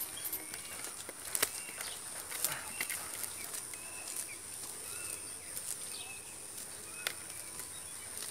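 Rural pond-side ambience: a steady high insect drone with short bird chirps scattered through it, and a few sharp ticks and rustles as a cast net is picked over by hand.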